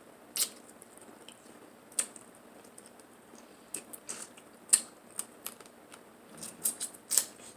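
Seafood-boil eating sounds close to the microphone: scattered sharp clicks and smacks at irregular intervals, a little more frequent near the end.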